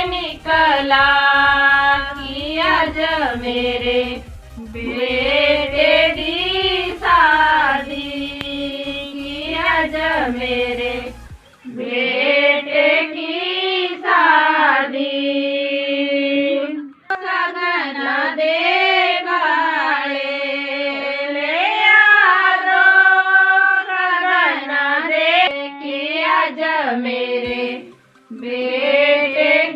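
A woman singing a slow song with long, wavering held notes, in phrases broken by short pauses.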